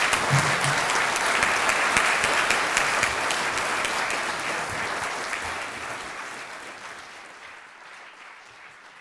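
Audience applauding: dense, steady clapping that fades out gradually over the second half.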